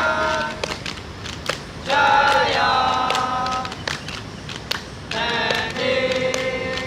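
A group of voices singing together in unison, three phrases of long held notes with short pauses between them. Scattered sharp clicks or taps are heard among them.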